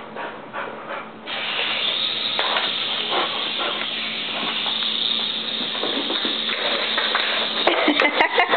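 Small remote-control toy helicopter running: a steady rushing hiss that swells up about a second in, over a low steady motor hum, with a few sharp clicks near the end.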